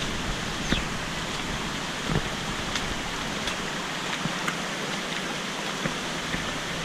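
Steady rushing of running water, with a few faint ticks over it.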